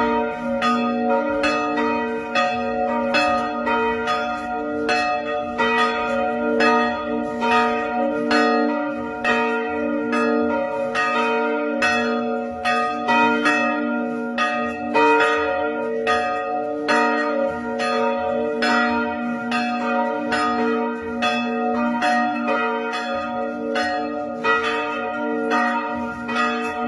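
Catholic parish church bells ringing in a continuous peal, strike after strike, with the tones ringing on between strikes.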